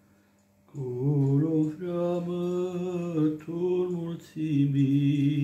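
A man singing a slow Romanian Christmas carol unaccompanied, in long drawn-out held notes. The singing starts about a second in, with a brief breath break near the end. A faint steady hum sits underneath.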